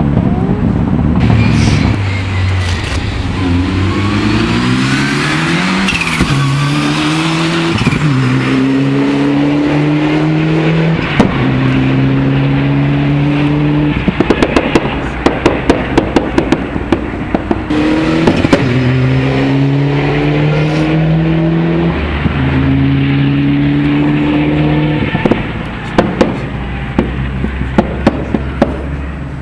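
Ford Escort RS Cosworth rally car's turbocharged four-cylinder engine driven hard, revs climbing and dropping with each gear change and holding high between them. Off the throttle, about halfway through and again near the end, it pops and crackles rapidly from the anti-lag system.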